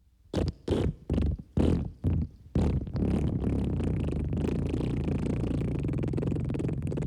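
Wet fart sound effects: about six short farts in quick succession, then one long, steady sputtering fart that starts about two and a half seconds in.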